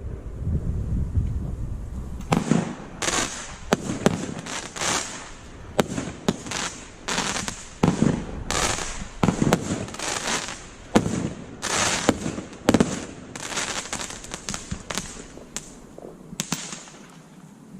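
A 1.3G firework cake, the Guy Fawkes Ammo Crate, firing a long, irregular volley of shots, with a sharp bang every half second to a second.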